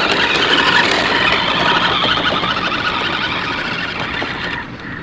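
Remote-control toy sports car's electric motor whining as its tyres run over dirt, loudest about a second in as it passes close and fading as it drives off toward the ramp, dropping off sharply near the end.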